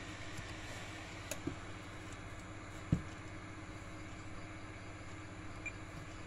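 Steady low electrical hum with a faint hiss, from the bench-powered car head unit and the loudspeaker wired to it. A few small clicks sound in the first two seconds, and a sharper knock comes about three seconds in.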